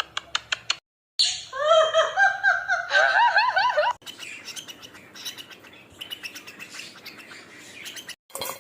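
A quick run of clicks, then a bird chirping in loud, repeated rising-and-falling calls for about three seconds, fading to fainter chirps.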